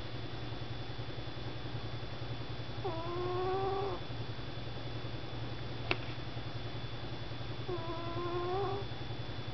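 Sleeping domestic cat snoring: two pitched snores about five seconds apart, each lasting about a second, over a steady low hum. A single sharp click falls between them.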